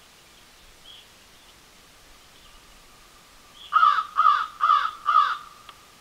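A corvid calling off-camera: four loud calls in quick succession, each falling in pitch, starting a little past halfway through.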